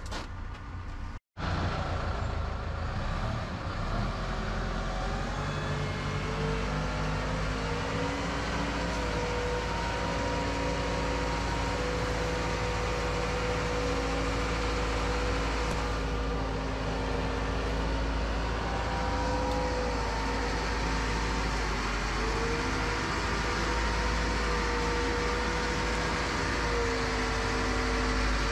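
Diesel engine of a Manitou rotating telehandler running as the machine drives, a steady rumble with a whine that drifts slightly up and down in pitch.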